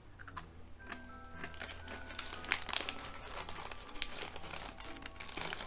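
Snack bag crinkling as it is handled, with many quick sharp crackles, over soft background music with held notes.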